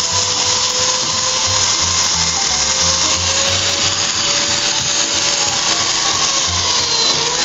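Hand-held polisher spinning a diamond pad against a terrazzo floor: a steady grinding hiss with a motor whine that wavers and dips near the end as the pad is pressed down. Background music with a steady bass line plays underneath.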